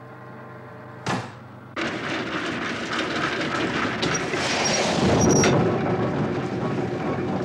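A short sharp snap about a second in as an oak-tanned leather test strip tears apart, then a bark mill starts grinding oak bark: a loud, continuous mechanical rattle and crunch as bark is fed into it.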